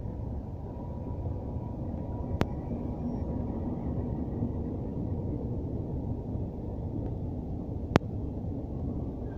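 Regional passenger train of push-pull coaches running past on the station tracks, a steady low rumble. Two sharp knocks stand out, about two and a half seconds in and near the end.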